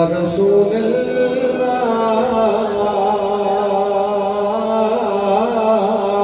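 A man's solo voice chanting a naat, a devotional poem in praise of the Prophet, in long held notes that waver in pitch.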